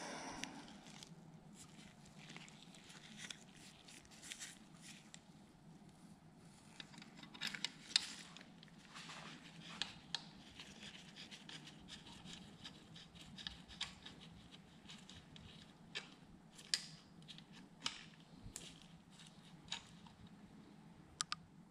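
Scattered light clicks and metal taps from a ratchet and torque angle gauge being handled and seated on a connecting rod cap bolt, over a faint steady low hum.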